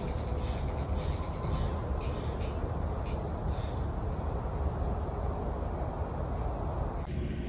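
Chorus of insects chirring steadily in a rapid pulsing rhythm, with a low steady rumble underneath; it breaks off abruptly near the end.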